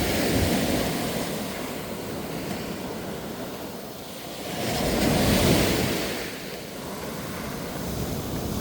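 Ocean waves breaking on a beach: a wave crashes and swells to a peak about halfway through, then washes back, with the next one building near the end. Some wind rumble on the microphone.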